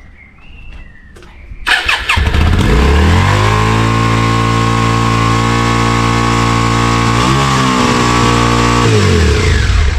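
Yamaha Virago 535's V-twin engine cranked on the starter, catching about two seconds in and climbing to a fast, steady idle, then winding down and stopping near the end. The idle is too high: the new throttle cable was fitted on the wrong end, so the engine revs higher than it should.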